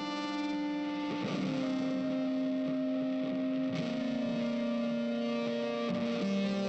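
Background music: sustained notes on an electric guitar with effects and distortion, changing pitch every second or two.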